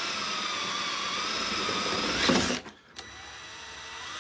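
Ryobi cordless drill boring a hole through the van's wall panel, its motor whine sagging in pitch under load. It gets louder about two seconds in, stops briefly, then starts again with its pitch climbing.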